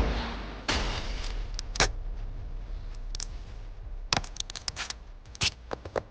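Unboxing handling noise: packaging rustles, then a run of sharp plastic clicks and taps about four seconds in.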